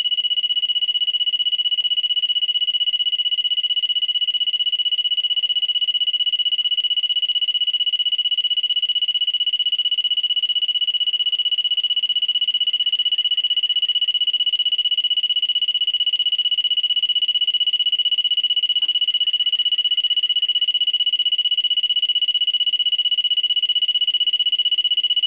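E/One grinder pump alarm sounding one steady, unbroken high-pitched tone while the pump runs in alarm mode: the on/off pressure switch is stuck off, so the pump is started only by the alarm switch.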